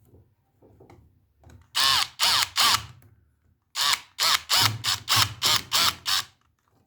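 Electric screwdriver with its torque set low, driving screws in short bursts. There are three bursts about two seconds in, then a quicker run of about seven from about four seconds in.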